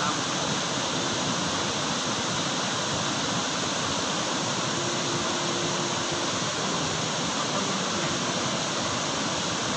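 Forest waterfall cascading over rock: a steady, even rush of falling water.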